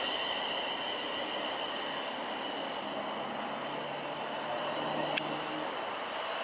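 Class 380 electric multiple unit approaching on the rails: a steady running noise with a thin high whine that fades over the first few seconds, a low hum joining about halfway, and a single sharp click about five seconds in.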